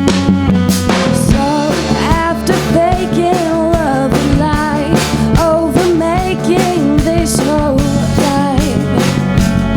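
Indie rock band playing a song: drums, bass and guitars under a wavering melodic lead line that starts about a second in and carries on until near the end.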